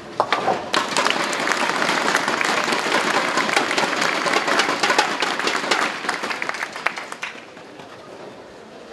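Bowling audience applauding a converted spare. The clapping starts suddenly and dies away about seven seconds in.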